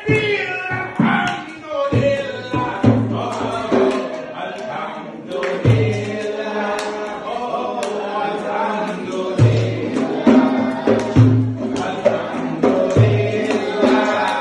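A song sung by voices, with a group seeming to join in, over a deep drum beat that thumps at irregular intervals and comes more often in the second half.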